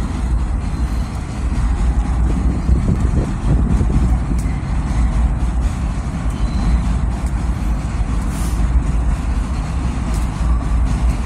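Steady low rumble of an MTA 6 train on the elevated line, mixed with street traffic.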